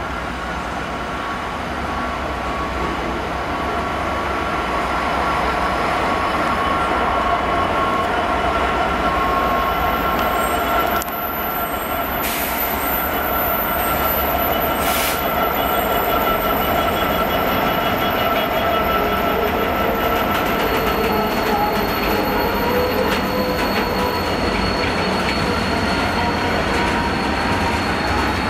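A Class 66 diesel locomotive (two-stroke EMD V12) passes close by, its engine running and growing louder as it draws near, followed by a freight train of steel-coil wagons rolling past with steady wheel squeal and a few sharp clanks.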